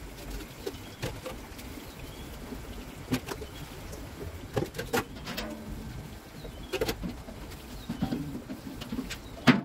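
Stainless steel pitchers and a large steel pot clinking and knocking against each other as they are washed in a basin of water, with water splashing and pouring; a sharp clank near the end is the loudest.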